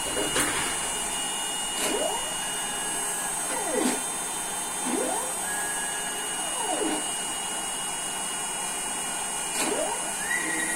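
ER11 CNC spindle motor running with a steady high whine, while a stepper motor drives the Z axis up and down in several short moves, each with a pitch that sweeps down and back up as it ramps.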